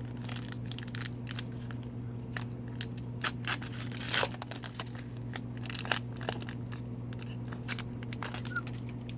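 Wrapper of an Upper Deck hockey card pack being torn open and crinkled, with many short crackles and the loudest rip about four seconds in, over a steady low hum.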